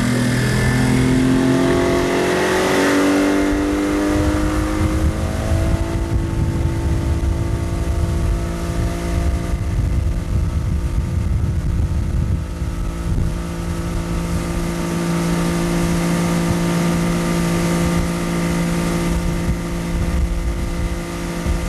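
Chrysler 75 hp outboard motor climbing in pitch over the first few seconds as the throttle opens, then running steady at speed while towing a water skier.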